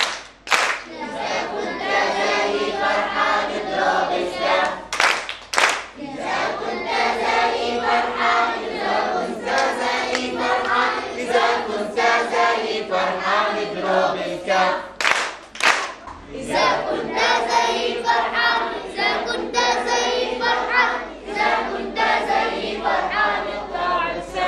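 A group of children and adults singing together in chorus while clapping their hands along in rhythm. A few sharp, louder claps stand out in pairs between the steady clapping.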